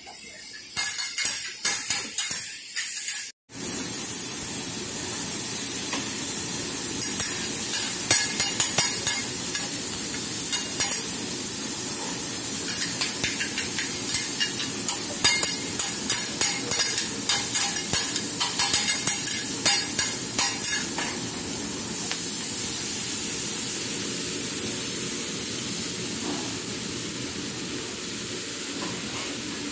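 Beef and fried rice sizzling on a flat-top hibachi griddle, with a steady hiss. Two metal spatulas clack and scrape against the steel in quick runs lasting several seconds each as the cook chops and tosses the food.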